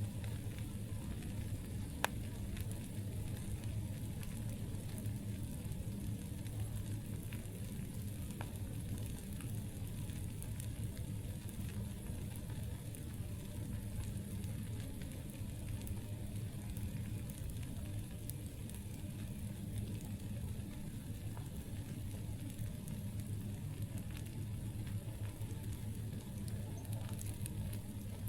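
Wood campfire burning with a steady low hiss and scattered crackles, one sharp pop about two seconds in.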